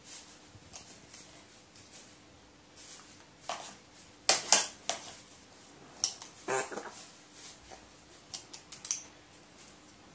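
A crow's beak tapping and rummaging in a small plastic cup of dry kibble: irregular clicks and short rattles, loudest around four and a half seconds in and again around six and a half.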